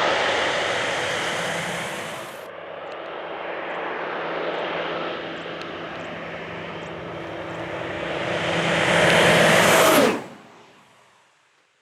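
Air Tractor AT-602 crop-spraying plane's Pratt & Whitney PT6A-60AG turboprop flying low and fast. One pass fades away, then the next builds to a loud peak as the plane goes by, its pitch dropping. The sound then cuts off about ten seconds in and dies away.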